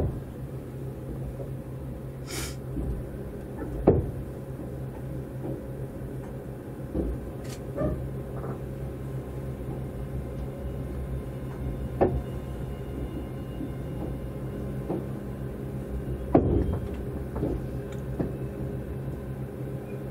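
Inside a Tobu 200-series Ryōmō express car: a steady hum made of several low tones, with a few sharp knocks, the loudest about 4, 12 and 16 seconds in.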